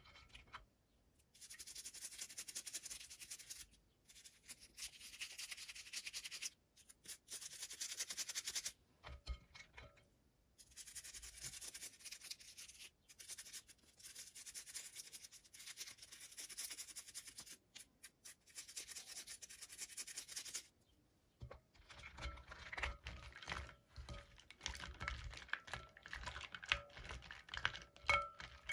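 Doll packaging handled during an unboxing: long stretches of scratchy rubbing and rustling, then a quick run of clicks and knocks on hard plastic over the last several seconds.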